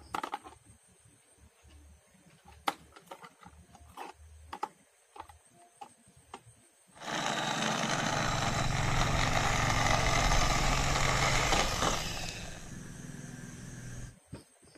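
Hard plastic toy cars clicking and knocking against each other as they are handled. About seven seconds in, a plastic toy police van starts a loud, steady whir as it runs along, which weakens after about five seconds and cuts off near the end.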